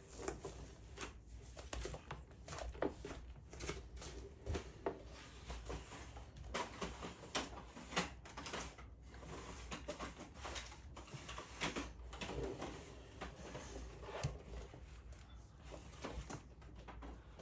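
Origami paper being handled and folded: irregular rustles and crinkles with scattered small clicks.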